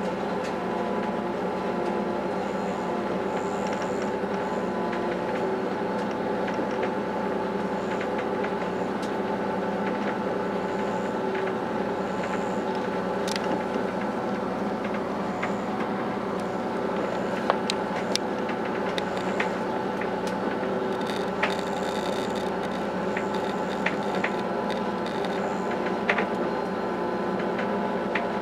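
SNCF B 81500 (AGC) regional train running steadily, heard from inside: an even hum of motors and wheels on rail, with scattered sharp clicks and rattles.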